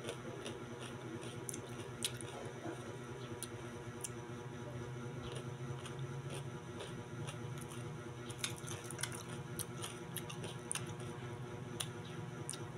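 Soft chewing and squishy mouth sounds of someone eating kwek-kwek (battered quail eggs), with scattered small clicks, over a steady low hum.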